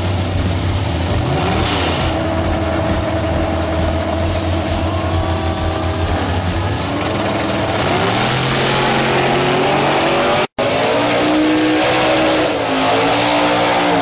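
Drag racing cars' engines running loudly at the starting line as the cars stage, with the engine pitch rising and falling several times as they are revved. The sound drops out for an instant about ten seconds in.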